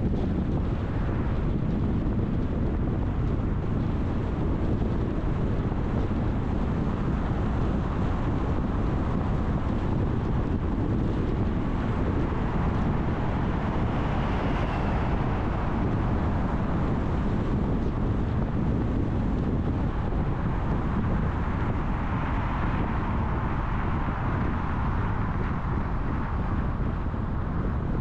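Steady low rumble of a car being driven: engine and tyre-on-road noise, unbroken, with no sudden events.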